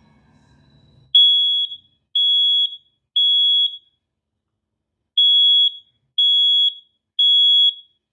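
Residential smoke alarm sounding on test: two groups of three loud, high-pitched beeps about a second apart, with a pause between the groups, the standard temporal-three alarm pattern.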